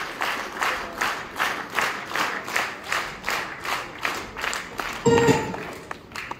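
Audience applauding, clapping together in a steady rhythm of about two and a half claps a second. About five seconds in, a short loud burst with a steady tone breaks in, and the clapping stops.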